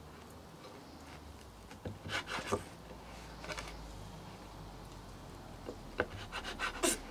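Large kitchen knife sawing through the crusts of a white-bread sandwich onto a wooden chopping board: two short runs of quick rasping strokes, about two seconds in and again near the end, with a few single taps of the blade on the board between them.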